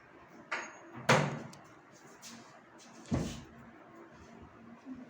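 Wooden wardrobe (almari) doors being shut. There is a light knock, then a sharp clack about a second in, and a dull thump about three seconds later.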